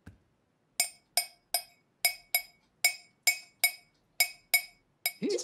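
A teaspoon clinking against a ceramic mug, about three times a second, each clink ringing at the same pitch. Near the end a short squeaky sound rises and falls.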